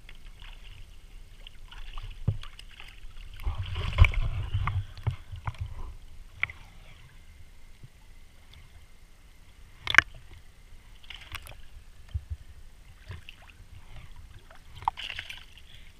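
Sea water sloshing and splashing close to the camera at a boat's stern, with a heavy knock about four seconds in and a sharp click about ten seconds in.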